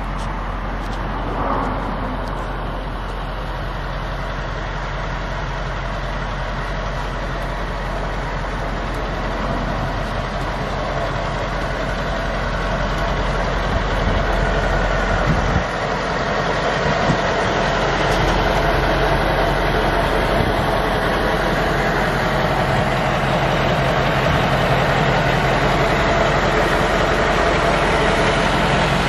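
Turbocharged Caterpillar 3208 V8 diesel idling steadily, growing louder toward the end.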